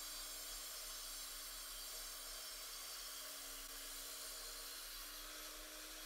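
VEVOR 9-inch 1800 W electric concrete saw with a diamond blade cutting wet through a concrete block: a steady motor whine over a hissing grind of the blade in the concrete. The motor's pitch sags a little midway and comes back up near the end.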